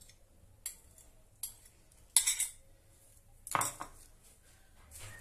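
Metal fork tapping and scraping against a plastic bowl scraper and a glass mixing bowl: a couple of sharp light taps, then two louder scraping clinks about two and three and a half seconds in, and a softer one near the end.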